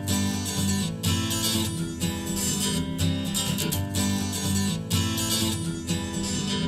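Instrumental opening of an acoustic song: a strummed acoustic guitar over a bass line in a steady rhythm, played back through an in-ear monitor.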